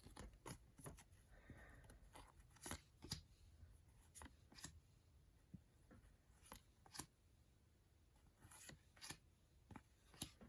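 Faint, scattered rustles and clicks of trading cards and sticker packets being handled and sorted.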